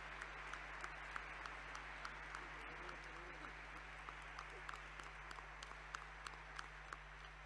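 Applause from a crowd in a hall, a steady patter of many hands with separate claps standing out, easing off slightly toward the end.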